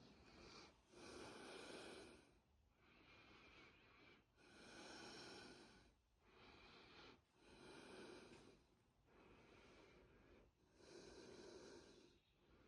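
Faint breathing of the person filming, close to the microphone: a slow, even rhythm with four louder breaths, each about a second long and roughly three seconds apart, and softer breaths between them.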